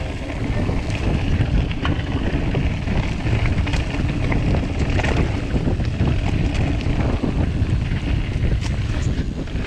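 Orbea Occam TR M30 mountain bike rolling down a dirt singletrack: a steady low rumble of wind buffeting the microphone and tyres on the trail, with scattered sharp clicks and rattles from the bike over bumps.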